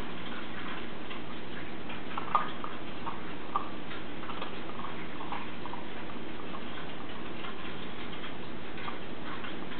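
Doberman gnawing a bison marrow bone: irregular clicking and scraping of teeth on bone, with two sharper cracks about two and a half and three and a half seconds in, over a steady hiss.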